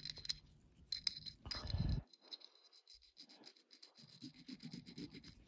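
Metal bracelet scraped on a jewelry testing stone to leave a streak for acid testing: a short, faint rubbing scrape among a few light clicks of handling.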